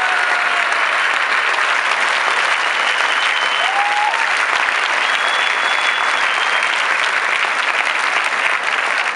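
Large audience in a sports hall applauding steadily, dense continuous clapping without a break.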